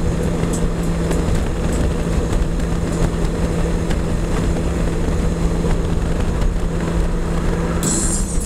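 Riding noise at highway speed on a Honda Gold Wing F6B: steady wind and road rush over the flat-six engine's even drone. A burst of brighter hiss comes in near the end.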